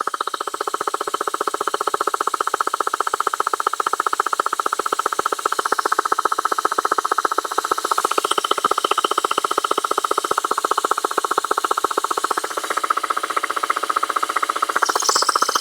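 A small electric motor running steadily with a rapid, even pulse, with a brief hiss near the end.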